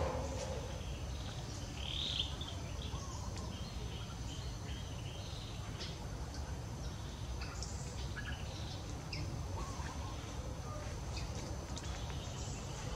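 Scattered short, high-pitched chirps and squeaks from small animals, with one stronger chirp about two seconds in, over a constant low rumble and a thin steady high tone.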